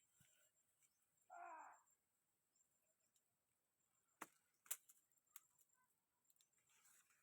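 Near silence, broken by one short call about a second and a half in and by a few sharp clicks past the middle.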